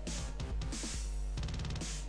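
Background music with a steady beat: bass drum, snare and cymbal hits over a sustained bass.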